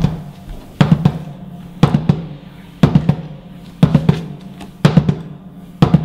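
Background music: a drum beat with a quick double hit about once a second over a low held bass note.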